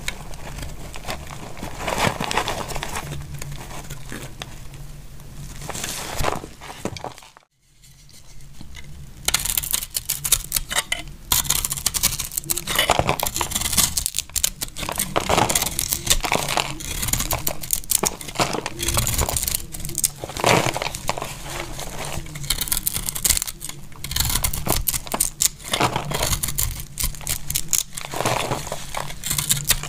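Utility knife blade cutting and shaving dry soap: dense crackling, crunching scrapes as brittle flakes break away. A short silent break comes about a quarter of the way in, and after it the cuts are louder and more closely packed.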